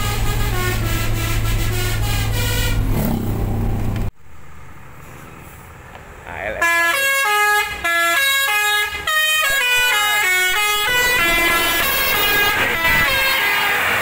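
ALS intercity bus's telolet horn, a multi-tone air horn playing a quick tune of held notes that step up and down as the bus passes close. Before it, for about the first four seconds, a steady low engine drone heard from inside a following car, which cuts off suddenly.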